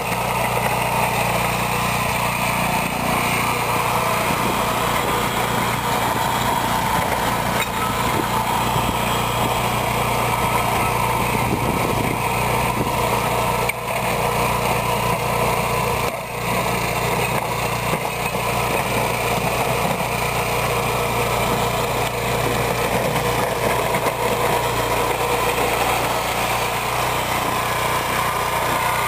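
Small single-cylinder gasoline engine of a BCS 853 walk-behind tractor running steadily under load while its front snow blade pushes icy snow, with light clanking from the barbell weights hung on the wheels as the tractor bumps along.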